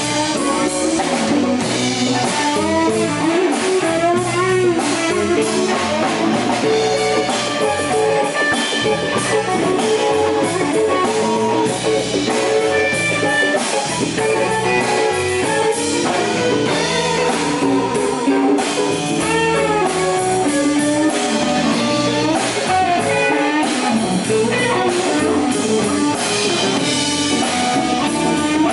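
Live blues band playing an instrumental passage: electric guitar lead with bent notes over drums and bass guitar, no singing.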